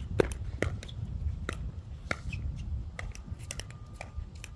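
A pickleball rally: a string of sharp pops as paddles strike the hard plastic ball and it bounces on the court, about one every half second to second, the loudest about a quarter second in. Wind rumbles low on the microphone underneath.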